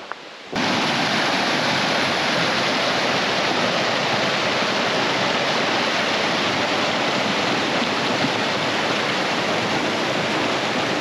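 Waterfall: a steady, loud rush of falling water that starts suddenly about half a second in.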